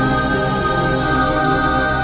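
Music: sustained, slowly shifting held tones, an eerie ambient drone.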